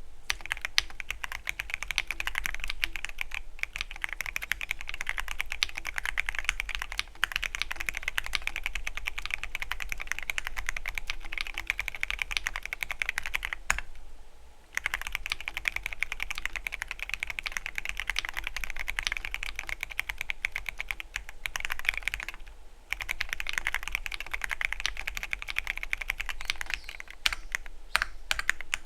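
Continuous typing on a Keychron Q13 Pro Max mechanical keyboard with linear red switches: a dense patter of keystrokes. The typing stops briefly twice, about halfway through and again about three-quarters of the way through.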